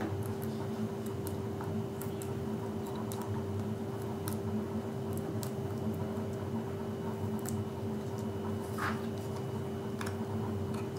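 Faint small clicks and rustles of fingers picking and peeling the release backing off thick foam adhesive pads on a small piece of card, over a steady low hum.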